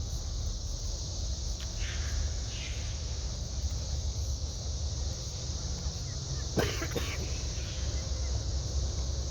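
Steady low rumble of the boat's engines as it enters the lock, with a steady high hiss over it. Two short sharp knocks come about two-thirds of the way in.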